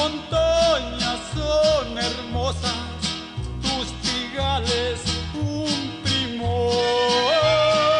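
Background music, an instrumental stretch of a song: guitar and bass on a steady beat under a gliding melody line that ends on a long held note.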